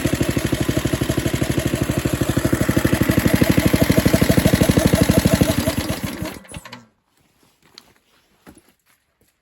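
Small Briggs and Stratton engine-driven air compressor with a Super Lo Tone muffler running with an even chugging beat, then shutting down and coasting to a stop about six seconds in. A few faint ticks follow.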